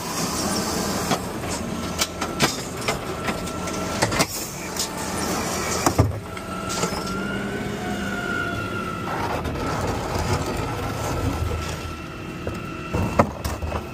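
Garbage truck's automated side-loader arm gripping, lifting and emptying a wheeled trash cart: a hydraulic whine over the running truck engine, with sharp clunks as the cart is handled, the whine rising and falling midway through.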